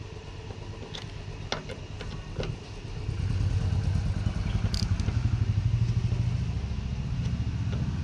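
A few sharp metal clicks from a ratchet with a hex bit turning Allen bolts on a motorcycle tank ring. From about three seconds in, a louder, pulsing low rumble of a motor vehicle's engine takes over.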